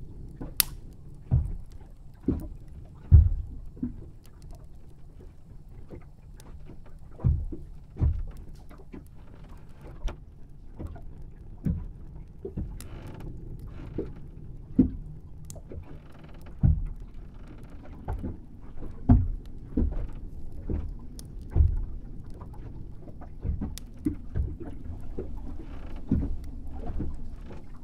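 Ambient sound bed: a steady low rumble with irregular soft thumps and knocks every one to three seconds, the loudest about three seconds in.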